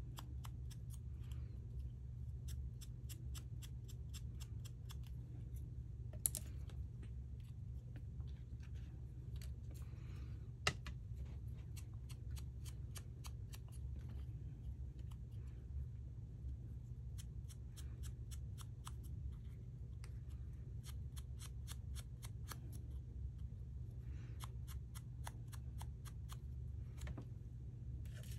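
Quick, light scratchy strokes of an ink applicator rubbed over card stock, coming in runs of several strokes a second, with a steady low hum underneath. Two sharp clicks, about six and eleven seconds in, as tools are set down.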